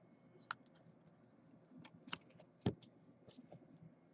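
A handful of faint, irregular clicks and light taps from trading cards and their clear plastic sleeves being handled on a tabletop, the sharpest about two and a half seconds in.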